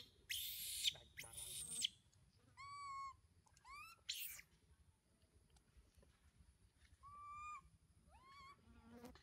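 Young long-tailed macaque crying: about four short, high, arching coo calls with harsh noisy screeches in the first two seconds and one around four seconds in.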